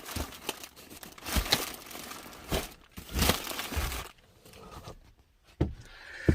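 Packaging crinkling and rustling as an item is handled and unwrapped, in irregular bursts for about four seconds, then quieter with a couple of light knocks near the end.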